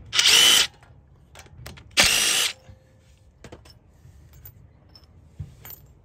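Cordless power driver spinning a socket on the front hub's drive-flange bolts, in two short bursts of about half a second each: one at the start and one about two seconds in. A few light clicks of metal follow.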